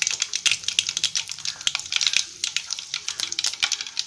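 Mustard seeds popping and crackling in hot oil in a steel kadai, with fenugreek seeds and two dried red chillies sizzling alongside: the tempering stage of a South Indian curry. Quick, irregular sharp pops over a steady sizzling hiss.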